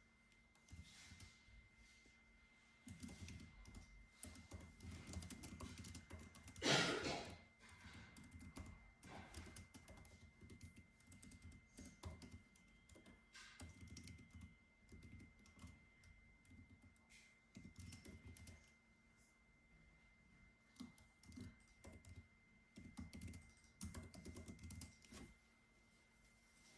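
Computer keyboard typing, soft key clicks in irregular runs with short pauses, and one louder short knock about seven seconds in.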